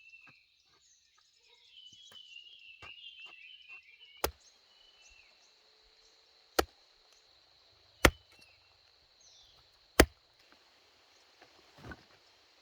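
Four sharp chopping strikes about two seconds apart, then a softer one near the end, over a faint steady high hum. Birds chirp in the first few seconds.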